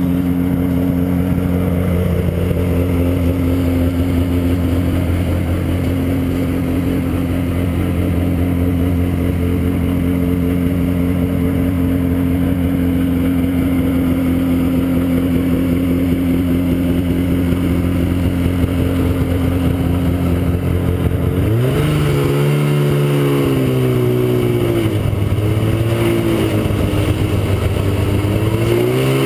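1979 Ski-Doo Blizzard snowmobile's two-stroke engine running at a steady speed, then about three quarters of the way through its pitch jumps up and wavers down and back up as the throttle changes.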